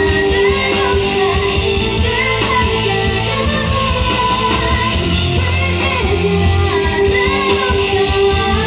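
Symphonic metal band playing: distorted guitars and drums under a singing voice, with held notes and wavering melodic lines.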